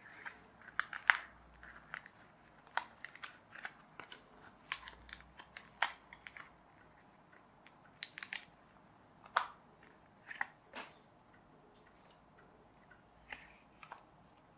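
Die-cut card pieces of a toy plane kit being pressed out of their sheet and handled: irregular small snaps, crackles and rustles of card. The snaps come thickly at first and thin out after about eleven seconds.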